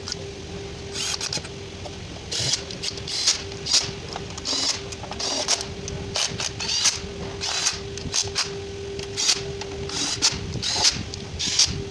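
Ratchet wrench clicking in short, irregular strokes while the bolts of an automatic transmission oil pan are run in, over a steady hum.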